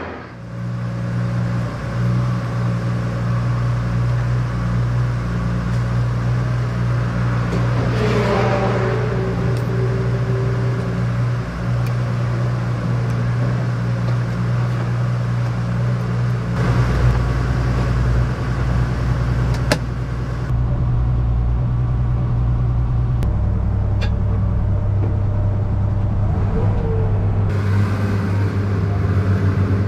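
Classic Porsche 911 race car's air-cooled flat-six engine idling steadily, with no words over it.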